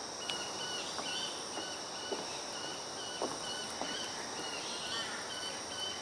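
Steady, high-pitched drone of insects, with a short high chirp repeating about twice a second and a few faint clicks.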